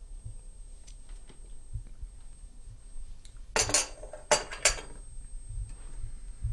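Porcelain coffee cup set down on its saucer: a short clatter about three and a half seconds in, followed by two sharp clinks of china.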